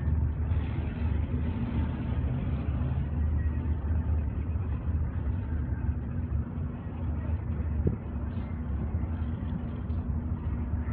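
Steady low rumble of distant engines, with a faint steady hum over it.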